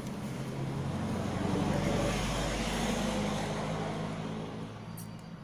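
A motor vehicle passing by: engine and road noise that swells over about two seconds and then fades away, over a steady low hum.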